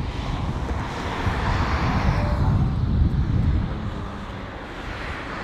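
Wind buffeting the microphone outdoors, with a rushing hiss that swells from about a second in and dies away after about three and a half seconds.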